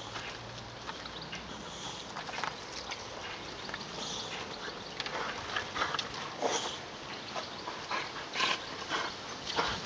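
Boxer dog tugging and biting at a knobby bicycle tyre caught in a shrub: irregular short scrapes and rustles of rubber against branches and leaves, mixed with the dog's own short noises.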